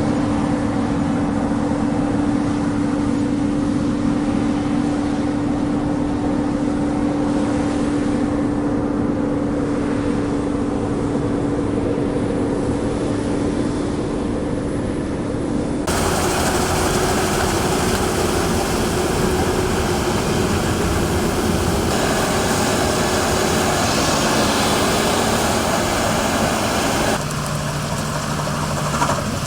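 Combine harvester running: a steady engine drone with a held tone. The sound changes abruptly about halfway through and again near the end.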